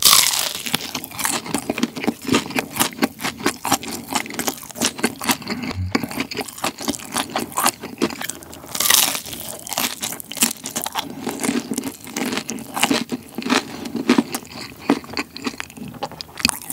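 Close-miked eating sounds: a crisp hash brown waffle with melted cheese and bacon being bitten and chewed, with a loud crunch at the start and another about nine seconds in, then steady crackly chewing.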